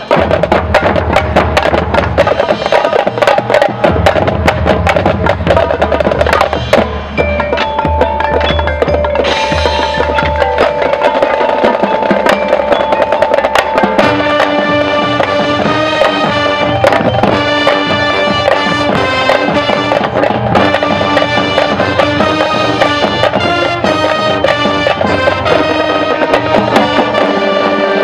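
Marching band playing a field show: the percussion section, with drums and bass drums, carries the music for the first half, then the brass comes in about halfway with sustained chords over the drums.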